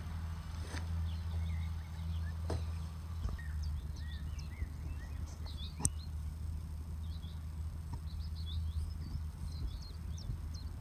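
Distant tractor engine running with a low steady drone, while small birds chirp in quick high notes that grow busier in the second half. A single sharp click comes about six seconds in.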